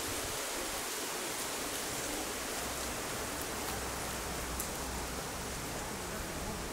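Steady, even hiss of outdoor background noise, with a few faint ticks around the middle.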